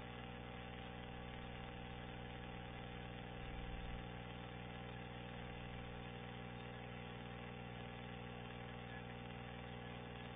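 Steady hum made of many even, unchanging tones, with a brief low swell about three and a half seconds in. Nothing from the ash emission itself is heard.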